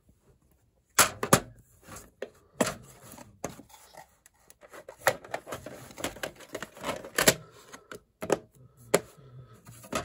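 Hard plastic clicks and clacks as a VHS cassette is handled and fitted into its plastic clamshell case: irregular taps and knocks, the loudest about a second in and a few later.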